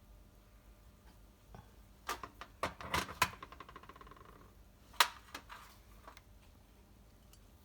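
Sharp metallic clinks and knocks of tools or small metal parts being handled, a cluster of them about two seconds in with a brief ringing note after, then a single sharp click about five seconds in.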